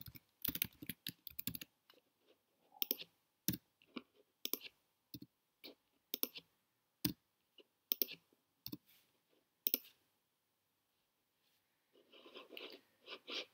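Computer keyboard keystrokes and mouse clicks: separate, irregularly spaced clicks that stop about ten seconds in.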